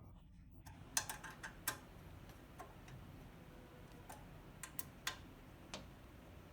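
Irregular small metallic clicks of a hex wrench seating in and turning the screws of a pen plotter's guide-rail mount as they are snugged up, about ten clicks spread over several seconds.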